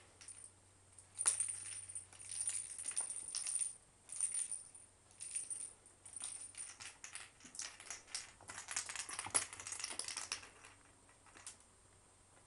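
Irregular jingling rattles and clicks of small toy balls being batted and chased by a kitten on carpet. It comes in bursts, loudest from about a second in and again around nine to ten seconds in.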